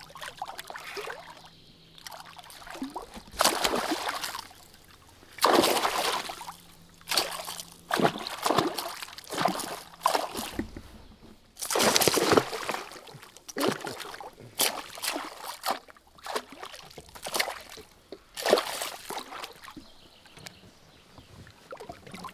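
Pike hooked on a wobbler thrashing at the water's surface beside a boat: a string of splashes and sloshes, a burst every second or two, with quieter water noise between.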